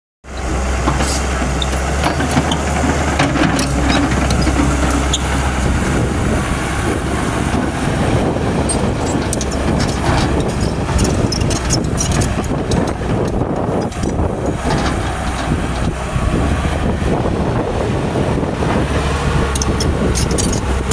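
Excavator's diesel engine running steadily while the machine works, with scattered knocks and clanks.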